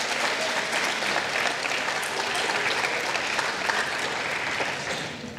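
An audience of students clapping, many hands applauding steadily, then dying away near the end.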